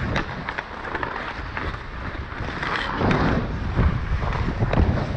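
Ice hockey skates scraping and carving on rink ice, with wind rushing over the helmet-mounted action-camera microphone and a few sharp clicks. The scraping swells about three seconds in and again near the end.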